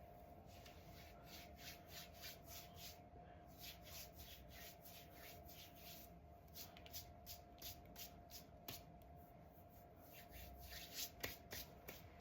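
Faint quick rubbing or brushing strokes, about two or three a second, over a faint steady hum.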